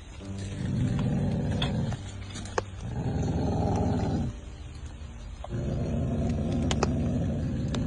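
A mother dog growling: three long, low warning growls with short pauses between them, the alert, ready-to-attack growl of a dog guarding her newborn puppies from a person coming close.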